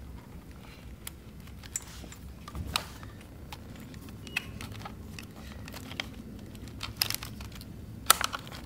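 Hands fitting a battery charger lead and plastic connector on a motorcycle frame: scattered light clicks and rattles, with a few sharper clicks near the end.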